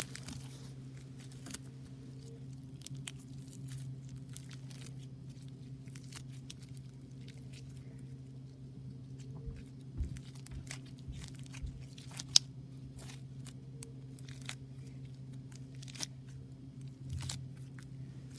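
Slime mixed with hamster bedding being squeezed and pulled, giving scattered small crackles and clicks, with a steady low hum underneath.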